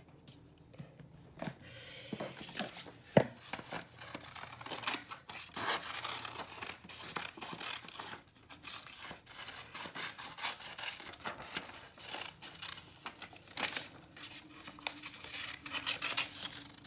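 Scissors cutting paper, with the sheet rustling and crinkling as it is handled: irregular snips and crackles, with one sharp loud click about three seconds in.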